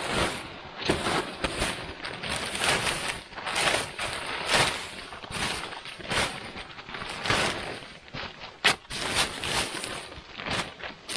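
Snow crunching and scraping in uneven strokes, roughly once a second.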